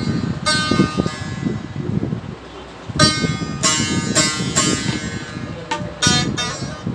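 Live folk music: a long-necked lute plucked in quick runs over tabla drumming. It drops quieter for about a second near the middle, then the plucked notes come back louder.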